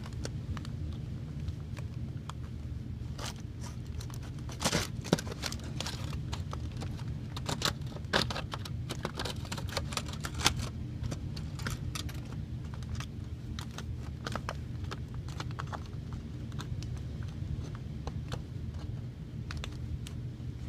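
Aluminum foil crinkling and scraping as it is cut and pulled away from a toy car's body with a blade, in scattered small clicks and crackles over a steady low hum.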